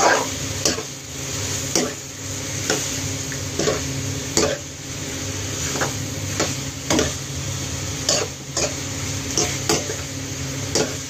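Metal spoon stirring cuttlefish pieces in a frying pan, knocking and scraping against the pan at irregular intervals of about half a second to a second, over a steady sizzle of frying.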